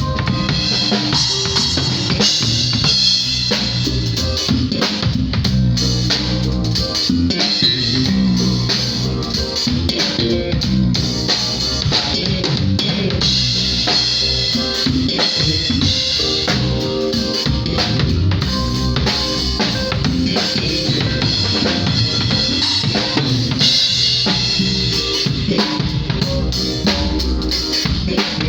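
A live band playing a groove during a sound check. The drum kit is loud and out front, kick and snare hits over bass and other pitched instruments, with no breaks.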